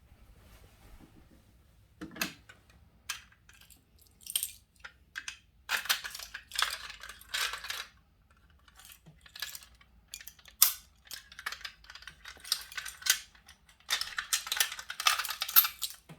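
A bunch of keys jangling, with scattered metallic clicks and scrapes, as a fire alarm pull station is unlocked and reset with its key. The jangling comes in longer spells about six seconds in and near the end.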